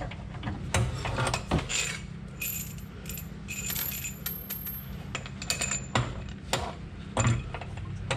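Light metallic clinks, taps and knocks of hand tools and a bolt against steel suspension parts while a subframe bolt and bushing are fitted, with a brief high metallic ringing a few seconds in.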